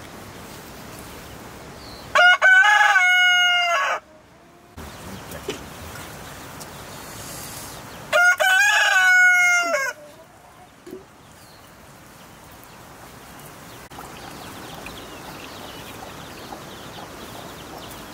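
A rooster crowing twice, each crow just under two seconds long and loud, about six seconds apart.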